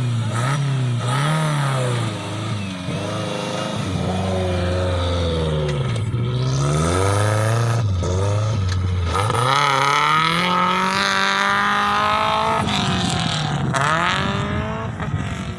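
Off-road vehicle engine revving up and down over and over, its pitch rising and falling in repeated swells, with one long climb in pitch around the middle.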